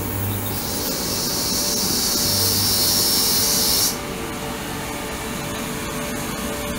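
Ultrasonic cleaning tank running, its water agitated: a steady noisy hiss with an on-and-off low hum. A bright high hiss cuts off suddenly about four seconds in, leaving a duller noise with faint clicks.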